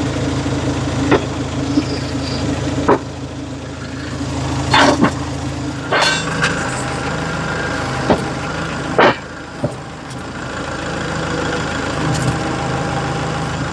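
Kubota L4060 tractor's diesel engine idling steadily, with about nine sharp metal clanks and knocks as a steel fork frame is fitted and latched onto the loader's quick-attach plate.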